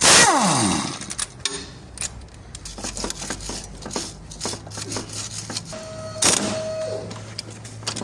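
Hand-tool work on a car's front suspension: many short, irregular metallic clicks and taps, opened by a loud sweep falling in pitch.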